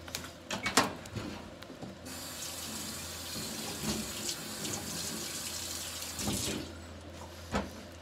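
Water running from a kitchen tap for about four and a half seconds. It starts abruptly about two seconds in and cuts off near the end, after a few light knocks in the first second.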